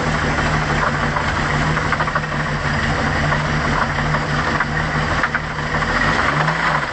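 OMC Cobra 4.3 V6 sterndrive engine idling with a knock in it, which the owner takes for a sign of internal damage. The engine is blipped briefly about six seconds in, its pitch rising and falling back.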